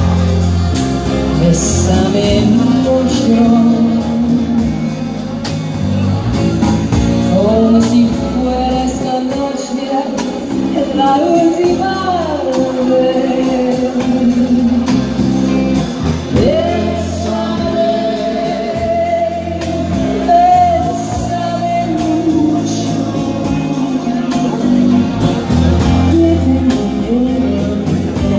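Live small band playing a bolero, with a woman singing into a microphone over electric guitar, bass guitar and keyboard, including one long held note in the second half.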